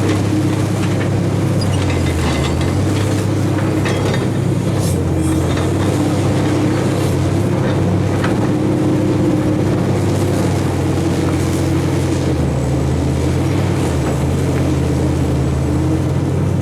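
Heavy earthmoving machinery's diesel engine running steadily under work, with a few faint clicks over it and a slight change in engine note about three-quarters of the way through.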